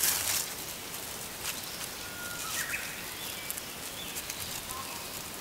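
Grass and weeds being cut by hand with a small sickle, rustling and tearing, loudest in a burst right at the start. A few faint bird chirps sound behind it.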